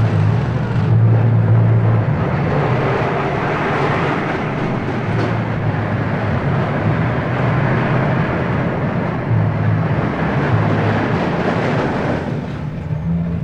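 A fairground ride running: a steady mechanical rumble with a wavering low hum, thinning out about twelve seconds in.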